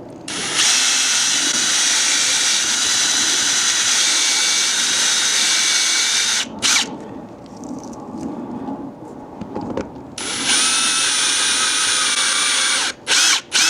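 Power drill spinning a step drill bit to enlarge the hex bore of an RC truck wheel. It runs steadily for about six seconds, gives a short burst, pauses for about three seconds, then runs again for almost three seconds and ends with two quick blips.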